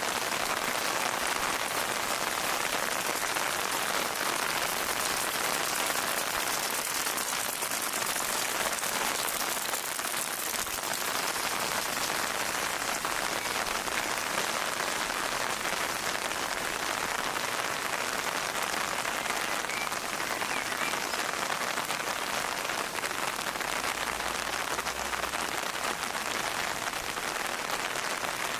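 Steady rain falling on a surface, an even hiss of many drops with no break.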